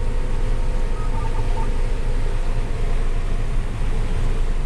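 Combine harvester running steadily while harvesting corn: a deep, even rumble of engine and threshing machinery, heard from inside the cab. A few faint short beeps come about a second in.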